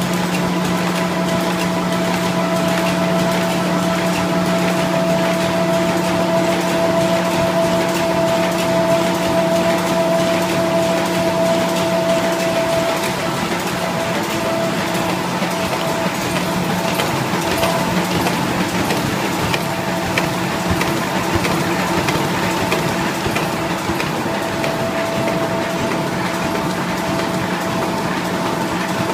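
Box folder-gluer machine running: a steady mechanical hum with a constant whine over the noise of its moving parts, the whine easing slightly about halfway through.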